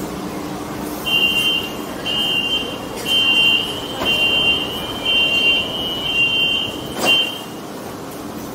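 Metro train door-closing warning: seven short high beeps, about one a second. About seven seconds in, a sharp thud comes as the sliding doors shut.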